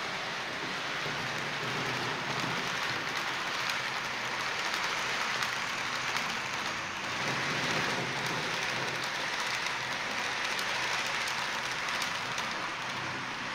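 H0-scale model freight train, a Vectron locomotive hauling tank wagons, rolling past on the layout's track: a steady hiss of small metal wheels on the rails with faint clicks, a little louder in the middle as the wagons pass closest.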